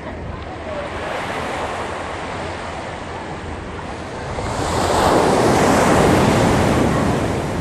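Ocean surf breaking on the beach: a wave builds and crashes at the shoreline, its rush swelling to the loudest point about five seconds in, then washing back down.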